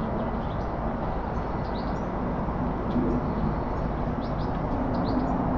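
A steady mechanical drone with a low hum, and a few short bird chirps over it.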